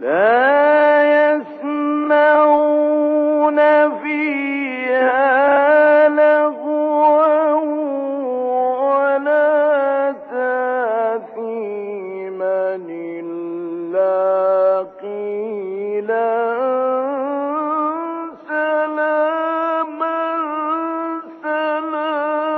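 A man's voice chanting Quran recitation in a slow, melodic style, holding long ornamented notes with a wavering pitch. It starts suddenly after a pause, and the pitch sinks lower about midway, then climbs again.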